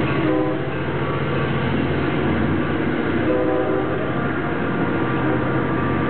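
EMD GP40 diesel locomotive pulling out, its 16-cylinder two-stroke engine running under load, with short blasts of its horn: one just after the start and another about three and a half seconds in.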